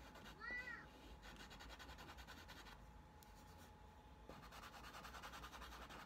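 Dry pastel stick scratching faintly across paper in short strokes. About half a second in, a short high-pitched squeak that rises and falls is the loudest sound.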